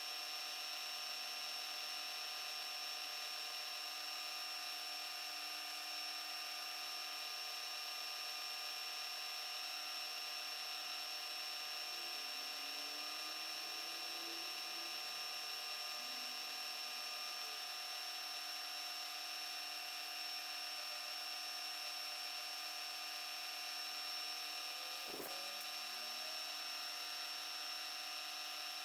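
Milling machine running steadily, its spindle whining at several constant pitches while a dovetail cutter feeds along a small casting. A single sharp click about three-quarters of the way through.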